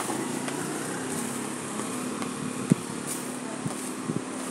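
Street noise with a small two-wheeler's engine running steadily, and a few sharp taps.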